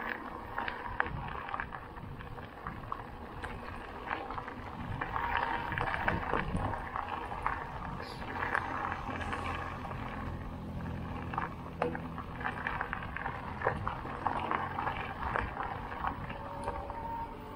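Mountain bike rolling over a rough trail, with the tyres crunching and the bike rattling and clicking over bumps. A steady low hum joins in about halfway through.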